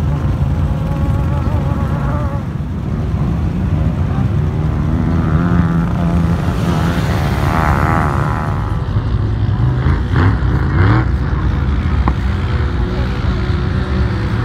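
Several off-road vehicle engines, quads and side-by-sides, running and revving together, loud and continuous. Engine pitch rises and falls around the middle.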